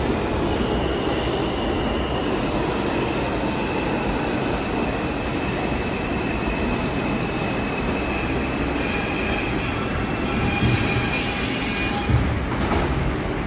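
R142 subway train running into the station along the platform, a steady rumble of wheels on rail with a thin high squeal from the wheels. It slows to a stop, with a single thump near the end.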